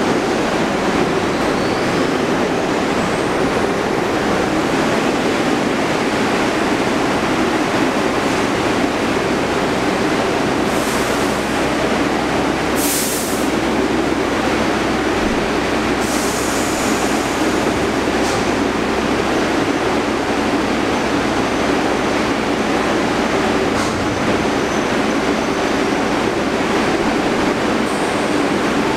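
Stationary Bombardier R62A subway train idling at the platform: a loud, steady hum and rush from its onboard equipment, with a few short hisses around the middle.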